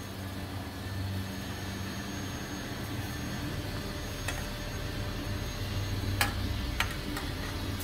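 Pot of water boiling on a gas burner, a steady low rumble. Three sharp metallic knocks about four, six and seven seconds in, as a ladle strikes the aluminium pot while lowering a fish into the water.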